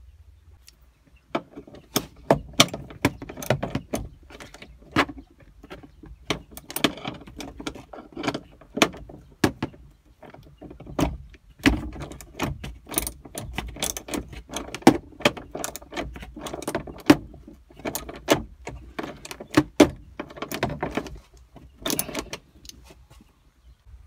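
Metal hand tools clinking and clattering: a socket wrench and extension being handled on the dashboard's bolts, giving irregular clusters of sharp clicks and clacks that start about a second in.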